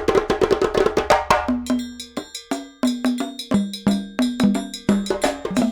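Background music built on rapid percussive strikes with pitched notes; a lower repeating melodic line comes in about one and a half seconds in.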